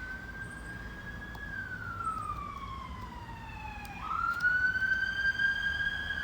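An emergency vehicle siren wailing: a single tone that holds high, slides slowly down, then sweeps quickly back up about four seconds in, where it also grows louder.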